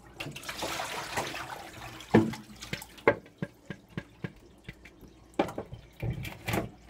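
Water splashing and draining into a kitchen sink for about two seconds, then a series of sharp plastic knocks and clatters as a salad-spinner basket of soaked escarole is handled.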